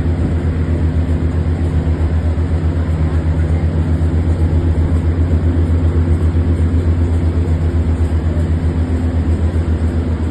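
Riverboat diesel engine running steadily at cruising speed: a loud, low drone with a throb that pulses several times a second.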